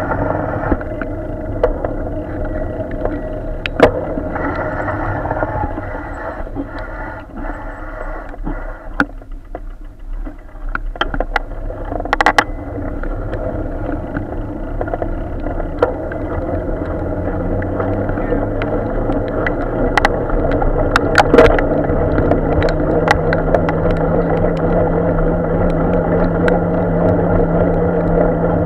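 Steady, muffled rumble of wind and tyres on a wet road, picked up by a camera on a moving bicycle, with several sharp knocks. In the second half a low hum rises in pitch and then holds steady, typical of a vehicle engine running close by in slow traffic.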